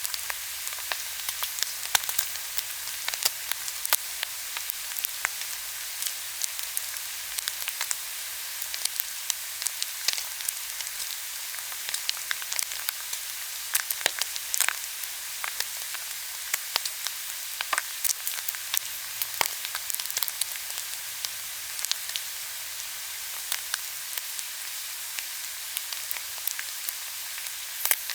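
Frying pan sizzling steadily: a continuous high hiss with frequent sharp crackles and pops scattered throughout.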